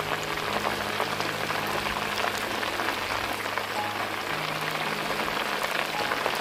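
Chicken pieces frying in hot oil in a shallow pan, the oil sizzling steadily with many small crackling pops as the chicken lightly browns.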